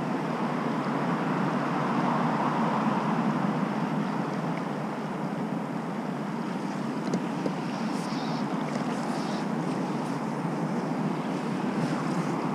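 Steady rush of flowing river water around a wading angler, with wind on the camera microphone.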